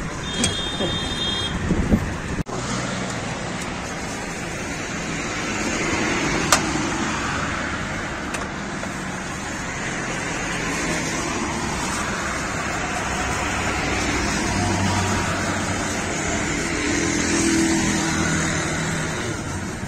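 Steady noise of road traffic, with a few knocks in the first two seconds and one sharp click about six and a half seconds in.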